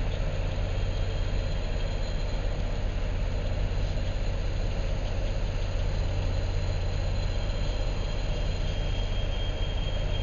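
Track repair train running past with a steady low rumble under a haze of noise, and a faint thin high whine over it.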